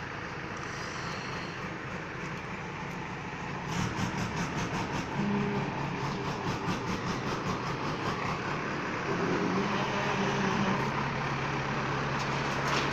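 A vehicle engine running with a steady low hum, louder and with a rapid rhythmic clatter from about four seconds in.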